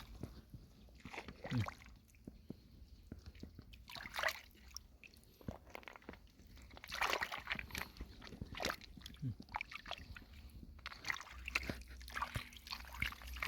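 Shallow lake water sloshing and splashing in irregular bursts as hands work through it picking up snails and clams.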